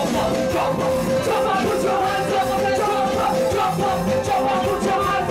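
Live band playing an up-tempo dance number: a steady drum-and-percussion beat under a long held keyboard note.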